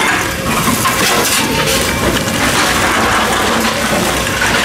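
Plastic bottles and cans rustling, crinkling and knocking together in a woven plastic bag as containers are pulled out, a run of crackly clicks over a steady noisy background.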